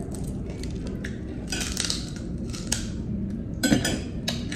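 Small crackles and clicks of a boiled balut egg's shell being picked off and crisp chicharon pork rinds being handled, with a louder sharp crack about three-quarters of the way through.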